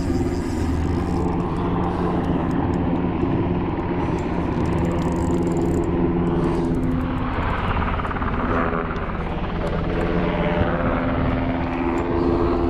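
Firefighting aircraft flying low overhead, its engine droning steadily; the pitch shifts around the middle as it passes, then settles again.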